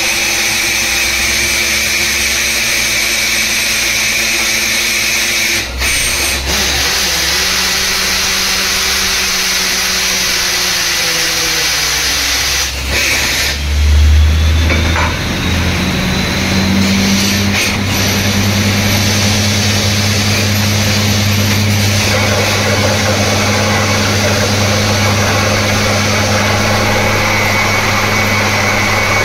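Borewell drilling rig running: engine and air machinery with a steady hiss over it. One set of engine tones slowly falls in pitch towards the middle, then a loud low surge comes and a different steady engine hum takes over for the rest.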